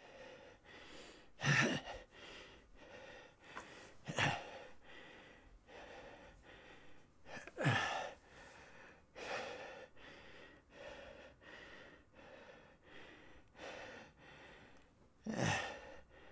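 An elderly man's labored breathing: short, hard breaths a little more than one a second, broken by four loud gasps, the last one near the end.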